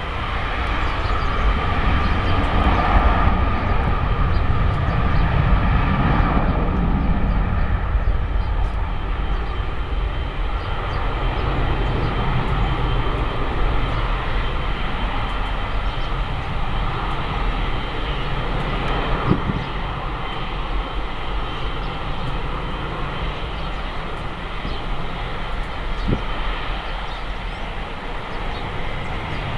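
Jet engine noise of a wide-body twin-engine airliner rolling out just after touchdown on a wet runway. It is loudest in the first few seconds, with a sweep down in pitch, then settles to a steady drone as the aircraft moves away. Two brief knocks come in the second half.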